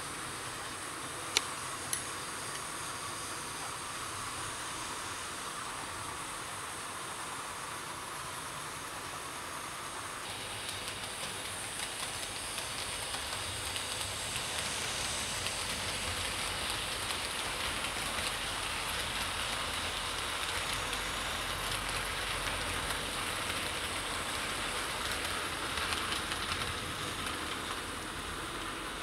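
00 gauge model King class locomotive running round the layout with its Pullman coaches: the steady running noise of the electric motor and wheels on the track, getting louder from about ten seconds in as the train comes nearer. Two sharp clicks near the start.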